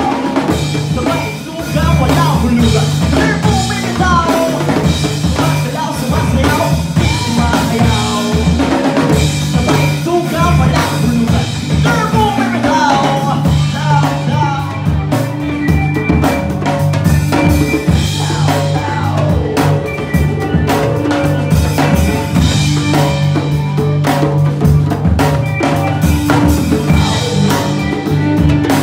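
A live band plays a song: a djembe is hand-drummed over a drum kit, with an electric bass line and acoustic guitars.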